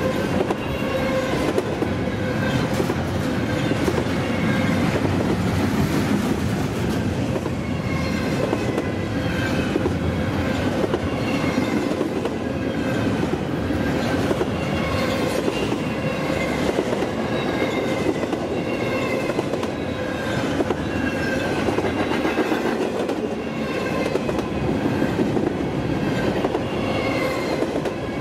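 Intermodal freight train's cars rolling past: a steady rumble and clatter of steel wheels on the rails, with short high squeals from the wheels every second or two.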